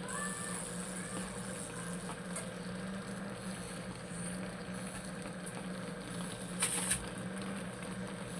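A steady low hum over faint background hiss, with a few faint clicks and a short, hissy scrape about two-thirds of the way through.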